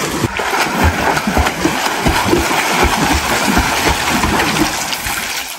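A person swimming in a shallow pool, kicking and stroking so the water splashes continuously.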